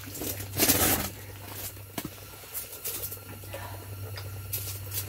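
Rustling and scraping of clothing against the camera as it is handled and moved about, with a louder brush just under a second in and a sharp knock about two seconds in, over a steady low hum.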